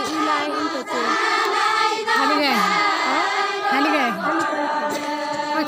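A group of women singing a Deuda folk song together, their voices overlapping in slow phrases that rise and fall.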